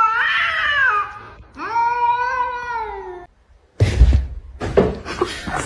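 A cat giving two long, drawn-out meows whose pitch wavers and steps up and down. About four seconds in come a few thumps and rustling noise.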